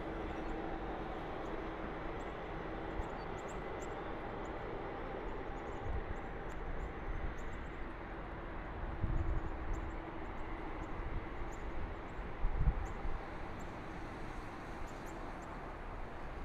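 Stadler FLIRT diesel-electric train running away into the distance: a steady rumble and hum with a faint tone that fades out. A few low thumps come and go.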